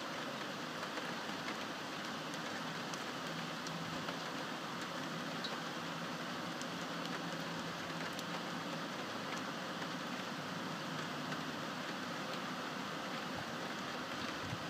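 Steady rain falling: an even hiss with scattered light ticks of drops.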